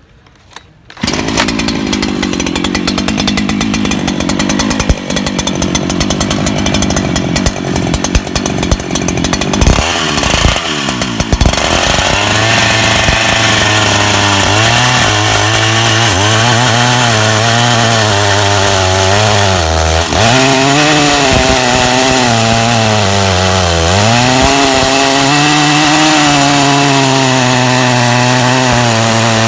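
Two-stroke chainsaw on a chainsaw mill starting up about a second in and running rough and low for several seconds. At about eleven seconds it is opened up to a steady high-speed run, ripping a plank lengthways from a log, with the engine note dipping twice as it bogs under load.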